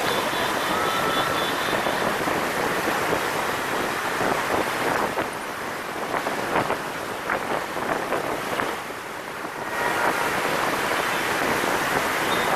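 Wind rushing over the microphone of a camera riding on a moving motorbike, over the steady noise of city traffic, with a few light clicks about halfway through.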